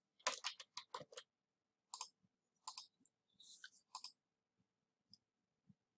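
A quick run of computer keyboard keystrokes, then a few separate mouse clicks spaced about a second apart.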